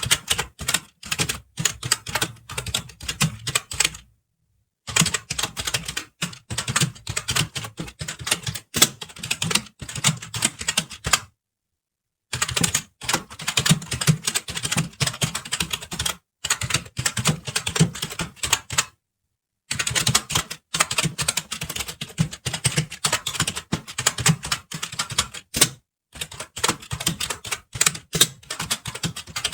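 Fast typing on a computer keyboard: rapid, uneven key clicks in long runs, broken several times by short, complete silences of up to about a second.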